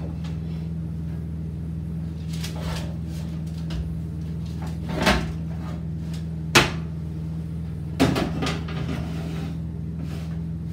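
Oven being loaded: a few knocks and metal clacks as the oven door is handled and a baking tray of beef skewers goes in. The sharpest two come in the second half, over a steady low hum.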